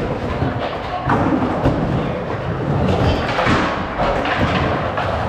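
Skateboards rolling and thudding on ramps, with several sharp knocks of boards hitting and landing.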